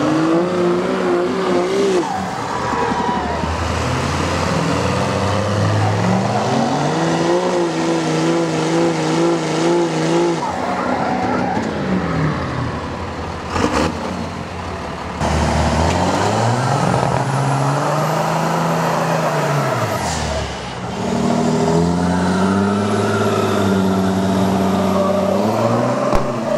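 Pickup truck engines revving hard under load in a tug-of-war pull, three times. Each time the pitch climbs, holds high with a slight waver, then drops.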